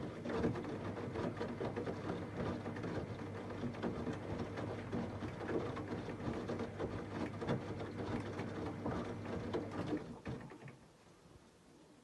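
Samsung WD90K6B10OW washer-dryer running mid-cycle, a steady motor hum with irregular clicks and knocks from the turning drum, which cuts out about ten seconds in as the machine shuts itself off. It is the unwanted mid-programme shutdown that the service puts down to the main control board.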